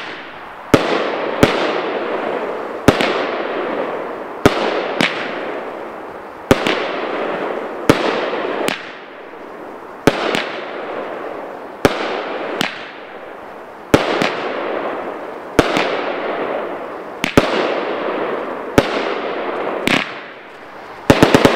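A 16-shot consumer firework cake firing shot after shot. Its sharp reports come mostly in pairs about a second and a half apart, each followed by a second or so of crackling hiss from its glitter and strobe effects, with a quick cluster of reports near the end.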